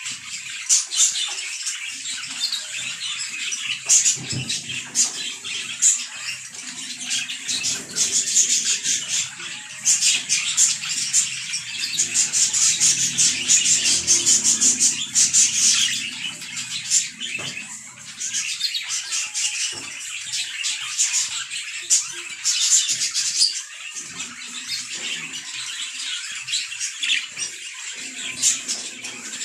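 Budgerigars chattering and warbling: a continuous run of quick high chirps and clicks, busiest in the middle.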